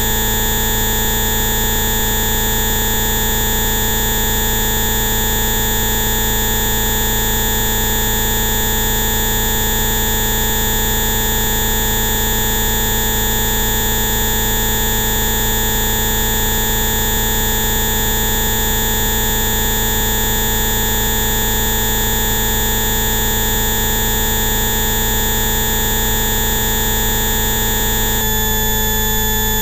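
Synthesized Rife-style therapy frequencies: many steady electronic tones sounding together over a hiss, an unchanging drone. About two seconds before the end, the mix of tones changes abruptly.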